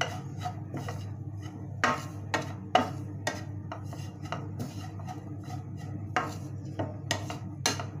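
Wooden spatula stirring grated coconut as it dry-roasts in a metal pan, with irregular scrapes and taps against the pan. A steady low hum runs underneath.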